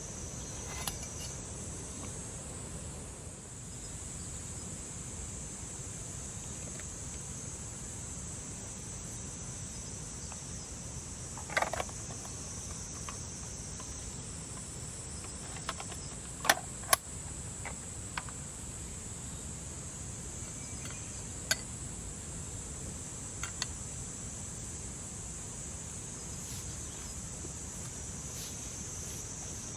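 Steady high-pitched chorus of summer insects, crickets or similar, with a few short sharp clicks and knocks scattered through it.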